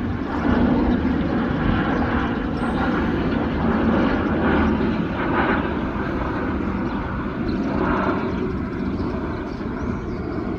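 Jet airliner engines: a steady rushing rumble that eases slightly near the end.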